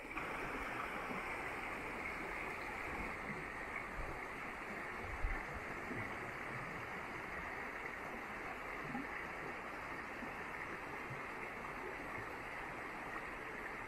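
Shallow rocky river running over stones in a steady rush of water, with a brief low thump about five seconds in.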